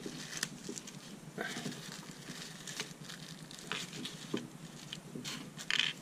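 Crinkling and rustling of a small clear plastic bag being handled, with scattered crackles and a few light clicks; the loudest crinkle comes near the end.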